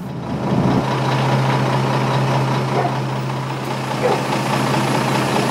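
A heavy vehicle engine running steadily at idle. Its low, even hum settles in less than a second in and holds.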